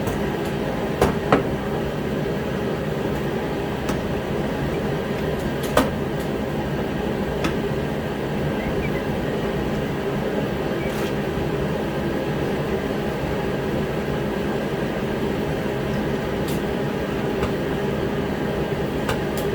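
Steady droning hum of a heater running against the cold, with a few sharp clicks of hard plastic and metal about a second in and again near six seconds as a wiper arm is worked loose.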